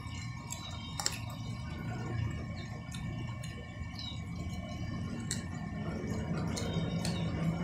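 Steady rain in the background, with a few sharp wet clicks and smacks from chewing sineguelas (Spanish plum).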